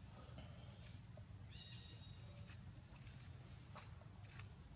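Near silence: faint outdoor ambience with a steady high insect drone and a few faint short chirps.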